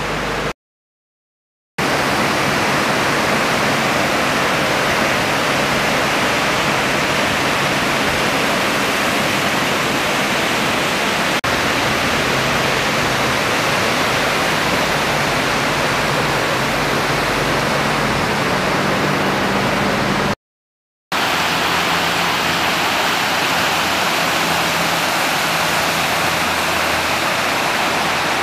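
Steady rush of river water running fast over rocks and rapids. It cuts out briefly twice, about a second in and again about twenty seconds in.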